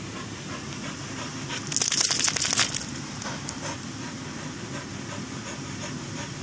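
A dog panting steadily with its tongue out, in a quick even rhythm of breaths. A brief loud rattle comes about two seconds in.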